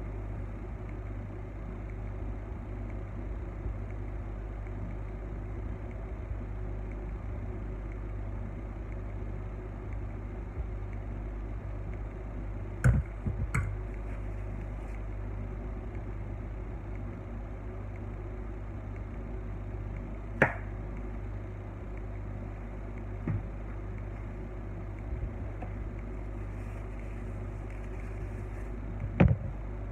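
Steady low hum of kitchen machinery with a few sharp taps and clicks standing out, spaced several seconds apart: the sounds of a room where a cake is being iced.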